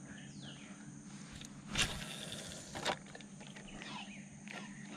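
Faint open-air background with birds calling, and two short sharp sounds about two and three seconds in.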